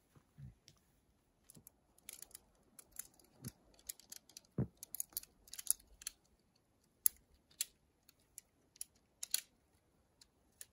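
Shock-corded tent pole sections being unfolded and snapped together: an irregular run of sharp clicks and clacks, with one duller knock about halfway through.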